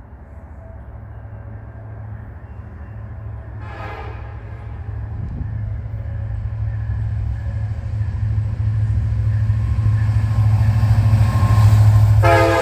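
Approaching freight train led by a CN SD70M-2 and a UP AC4400CWM rebuild: the diesel locomotives' engine drone grows steadily louder as they come closer. The lead locomotive's horn sounds briefly about four seconds in, and again, louder, near the end.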